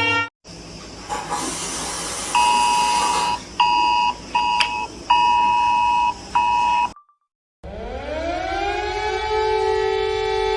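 Mock emergency-alert audio: a two-tone alert signal like the EAS attention tone plays in choppy, stuttering bursts over hiss, then cuts out. After a short silence, a siren winds up in pitch and holds a steady tone.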